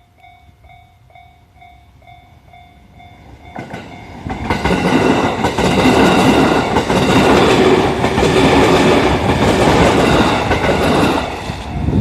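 A level-crossing bell ringing in a fast, even ding-ding, then about three and a half seconds in a JR East E501 series electric train passes close by, loud, its wheels clattering over the rail joints and drowning out the bell. Near the end the train noise eases and the bell is heard again.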